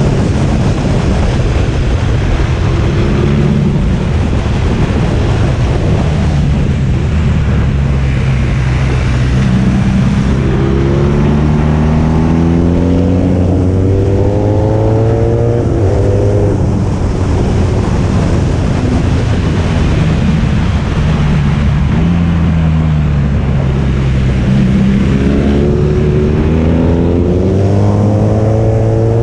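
Motorcycle engine heard from on board while riding, over a steady rush of noise. Its pitch climbs as the bike accelerates about a third of the way in, drops back as it slows, and climbs again near the end.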